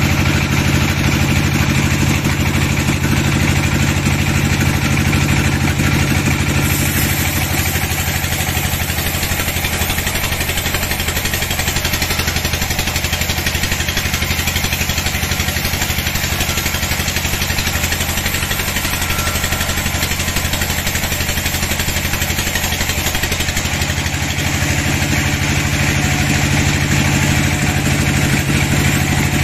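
Large sawmill band saw running steadily while it rips a dry teak log lengthwise, a loud continuous machine drone with the hiss of the blade in the wood. From about seven seconds in to about twenty-four seconds in, the low hum eases and the higher cutting hiss comes up.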